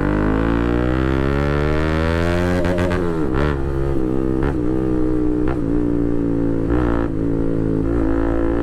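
Bajaj Pulsar RS200's single-cylinder engine through a full titanium Akrapovic exhaust with the dB killer removed, very loud. For about the first three seconds the engine note rises steadily as the bike accelerates, then it settles and holds a fairly even pitch as the bike cruises, with a few brief dips.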